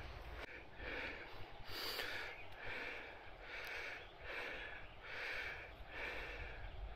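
A person breathing hard from exertion while hiking, with heavy, rhythmic breaths in and out a little more than once a second.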